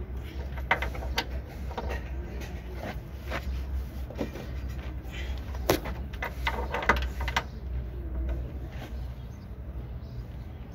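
Irregular metallic clicks and knocks of hand tools working on a car's front suspension arm during a bush replacement, over a steady low rumble.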